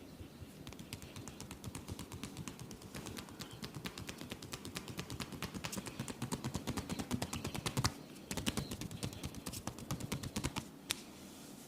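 Rapid percussive massage strokes: a masseur's hands striking the body several times a second, growing louder, with a brief break about eight seconds in and a sharp single slap near the end.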